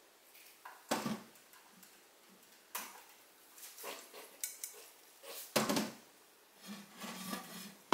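Rusty metal headphone made from two old loudspeakers knocking and clattering against a wooden tabletop as it is handled and set down: a handful of separate short knocks and rattles, a second or so apart.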